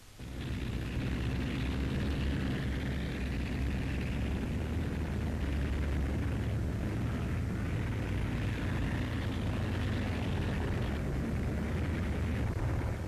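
Steady heavy rumble of engines with a rushing noise over it, like armoured vehicles on the move. It starts suddenly and cuts off suddenly at the end.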